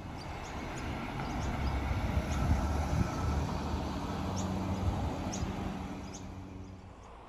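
A car driving past on the road. The tyre and engine noise swells to a peak around the middle and fades near the end, with birds chirping.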